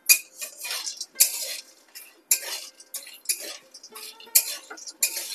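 Metal spatula scraping and stirring sun-dried badi (lentil dumplings) frying in a little oil in a metal wok, in quick repeated scrapes against the pan.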